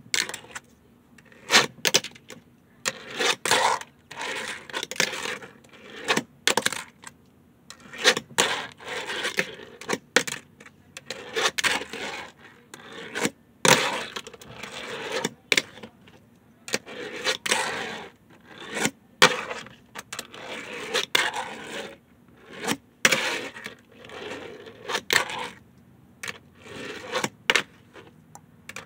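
Tech Deck fingerboard on hard plastic cases: repeated sharp clacks as the small board is popped and lands, between short stretches of its wheels rolling and the deck scraping along the surface.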